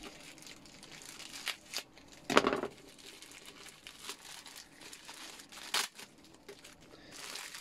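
Clear plastic packaging crinkling and tearing as it is pulled open by hand, in irregular crackles. About two seconds in there is one short, louder pitched sound.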